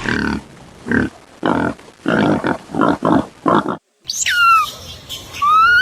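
Pig grunting in about seven short, rough grunts. After a brief break, a different animal gives high whistled calls, one falling steeply and one rising.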